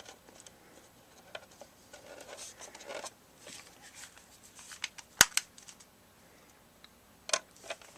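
Screws and metal parts being handled while reassembling an air conditioner's housing: faint scraping and rattling, with a sharp click a little after five seconds and a few more clicks near the end.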